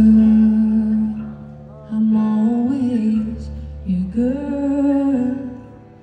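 Live folk music from steel-string acoustic guitar and violin, a melody of long held, gliding notes in phrases that break off briefly about two and four seconds in.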